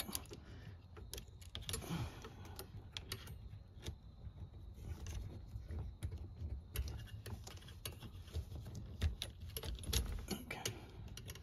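Irregular light clicks and rattles of metal wires and plastic parts being handled on the lumbar support frame of a Honda Pilot front seat back.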